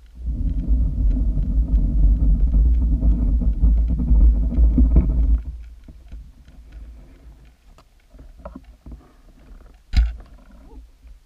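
Underwater recording: a loud low rumble with a faint hum for about five and a half seconds, then it stops. After a quieter stretch with small clicks, a single sharp knock sounds as a pike strikes at the lures.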